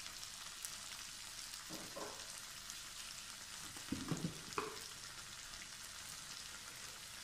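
Chopped vegetables and sauce sizzling in hot oil in a steel wok, a steady hiss. A few short louder sounds break in around four seconds in.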